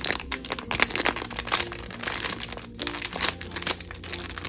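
Foil blind-bag packet crinkling and crackling in the hands as it is torn open, with many small irregular crackles.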